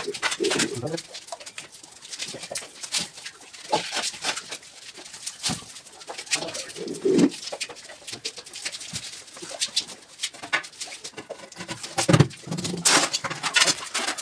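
Irregular slaps, knocks and scrapes of masonry work: a brush splashing cement slurry onto a bare wall and a trowel working a sand-and-cement mix.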